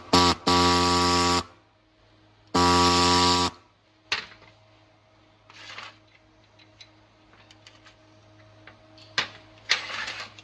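Handheld reciprocating air saw buzzing at a steady pitch as it cuts a thin metal strip, in two runs of about a second each. A pause with a faint hum and a few clicks follows, and the saw starts cutting again near the end.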